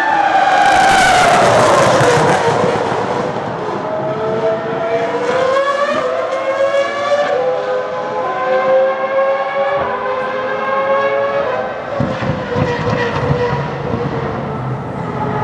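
Ferrari Formula 1 car's engine at high revs on track. It is loud in the first seconds as its pitch falls, then climbs again in several steps through the gears and holds a steady high note as the car runs on.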